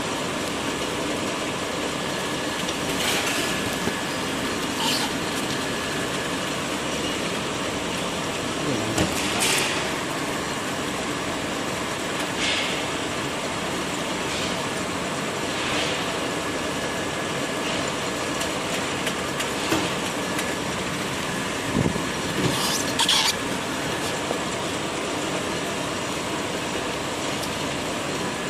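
Steady whir of a jumbo-roll tissue shrink-wrapping and heat-shrink machine running, with a few brief crinkles of shrink film now and then as a hand handles a freshly wrapped roll.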